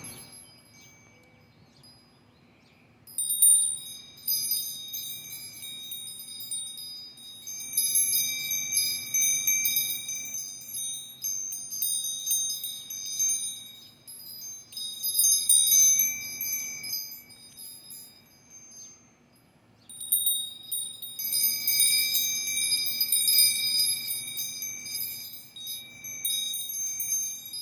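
A string of bells ringing, many bright, high, overlapping tones jingling together. It starts about three seconds in, dies away briefly past the middle, then rings again.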